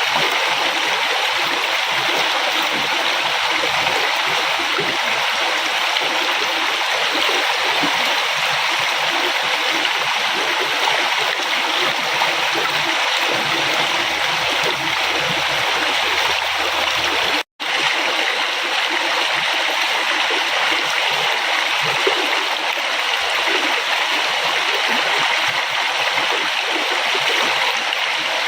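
River water flowing and splashing in a steady, even rush. The sound cuts out for an instant about two-thirds of the way through, then carries on unchanged.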